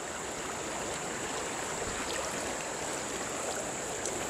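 Swollen, muddy stream in flood rushing past, a steady even rush of water.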